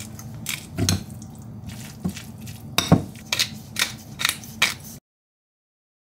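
Spice grinder being twisted and a spice jar shaken over a ceramic bowl, giving a run of sharp clicks and taps with light clinks of dishware; a quick series of taps comes near the end. The sound then cuts to dead silence about five seconds in.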